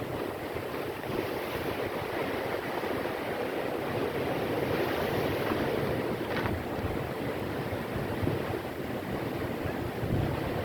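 Storm waves crashing and splashing in a steady, continuous wash, with wind buffeting the microphone.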